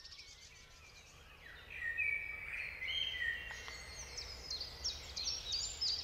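Songbirds singing: after a brief lull, clear whistled phrases come in, followed by a rapid run of repeated high notes.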